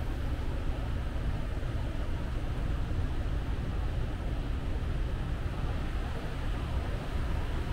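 Steady low rumble with a light hiss and no distinct events: airport background noise.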